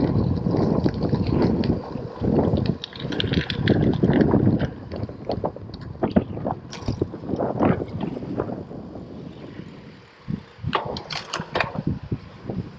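Gravel bike tyres crunching and rumbling over a loose gravel path, loud and rough. About five seconds in the ride moves onto smooth tarmac and the rolling noise drops away, with a few sharp clicks near the end.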